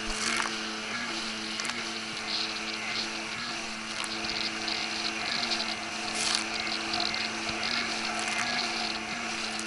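Engine of a fast motorized watercraft running at speed, a steady hum, with water spray hissing and slapping over it.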